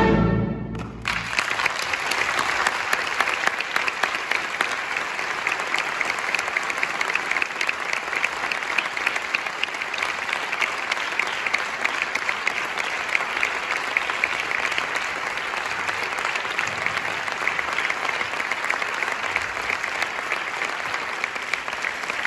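A symphony orchestra's last chord, which stops about a second in, followed by an audience applauding steadily.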